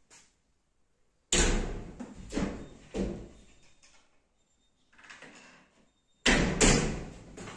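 Laminated wardrobe cabinet doors being swung open and shut, with a sharp knock about a second in and two more knocks soon after. Two more knocks come close together near the end.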